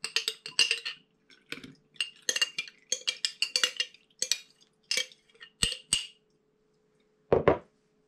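Spoon and glass jar clinking and scraping against a metal mesh strainer as honey-soaked onion pieces are poured in and pressed, a quick run of clinks that ends in two sharper taps. Near the end, one heavier knock, like a glass jar set down on a wooden table.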